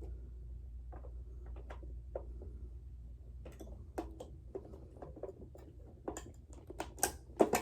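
Scattered light clicks and taps of D-cell batteries being handled and fitted into a Robosapien V2 robot's plastic battery compartment, coming more often and louder near the end, over a steady low hum.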